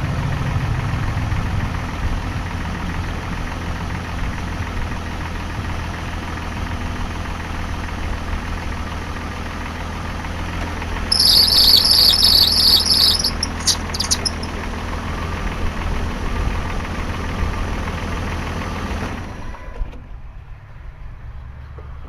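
Jeep Grand Cherokee ZJ's 4.0L inline-six engine idling, with a loud high-pitched serpentine belt squeal about halfway through lasting a couple of seconds, then a few short chirps: the newly fitted belt slipping and still needing its tension adjusted. Near the end the engine shuts off.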